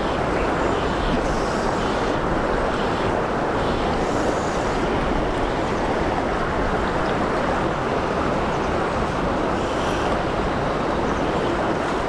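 Steady rush of river water running over a riffle close to the microphone.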